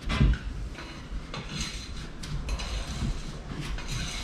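Scattered light metallic clinks and scraping from hands and tools working on parts of a Chev 350 V8 engine.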